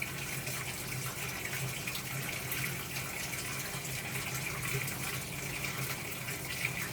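Speed Queen top-loading washing machine filling its tub with water: a steady rush of incoming water over a low, even hum.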